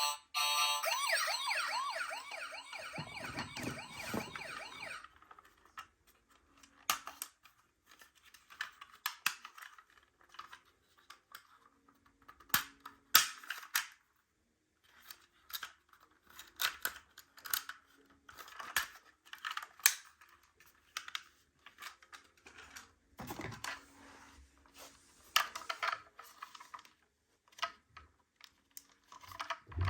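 Toy ambulance's electronic siren wailing with a fast wavering pitch for about five seconds, then stopping. After it come irregular light clicks and clatters of small plastic parts, some sharper than the siren, with short silent gaps between.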